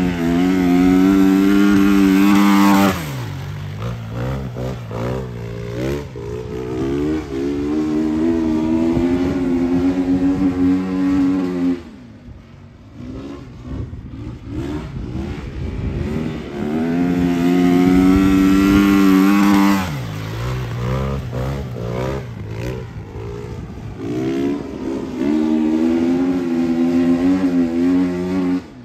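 Flat track motorcycle lapping a dirt oval, engine held at high revs, then dropping sharply in pitch as the throttle is shut, twice. Between these the revs rise and fall, and the engine fades for a few seconds about halfway through.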